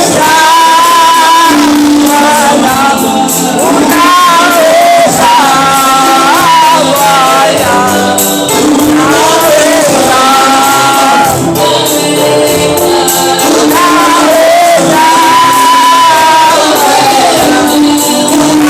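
Gospel song with lead and choir singing over a band with a steady beat.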